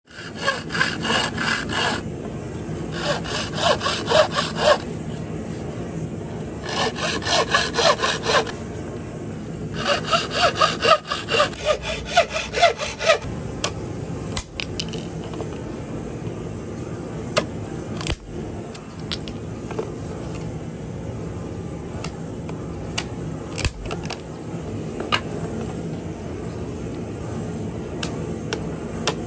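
A hand saw cutting bamboo in four bouts of fast, rasping back-and-forth strokes, each one to three seconds long. After the last bout there are only scattered sharp clicks and taps of a knife working a green bamboo pole.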